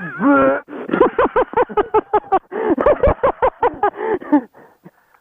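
People laughing: a long run of quick rising-and-falling voiced pulses, about five a second, that fades out near the end.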